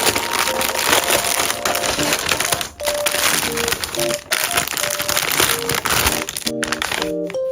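Parcel packaging being handled and unwrapped, crinkling and rustling loudly with two short breaks, over soft background piano music.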